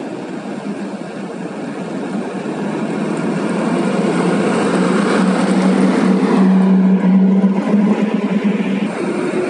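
Heavy diesel dump truck driving past: a steady engine drone with tyre and road noise, growing louder as it nears, loudest about six to seven seconds in, then easing off.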